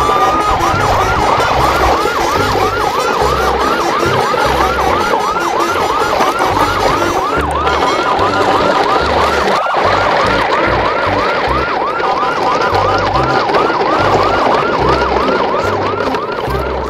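Siren sound effect: a rapid yelping wail, its pitch sweeping up about three times a second without a break, over a low pulsing beat.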